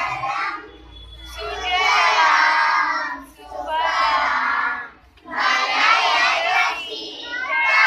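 A small group of young children singing a school assembly prayer together, in phrases broken by short pauses.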